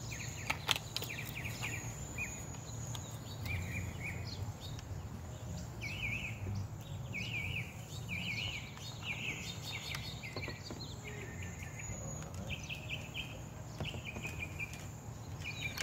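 Small birds chirping over and over in short, quick phrases, over a steady low hum.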